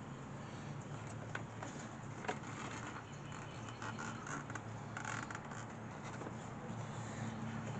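Faint scraping and a few light clicks of hands and tools working a new serpentine belt onto the pulleys, with a rougher scrape about five seconds in, over a steady low hum.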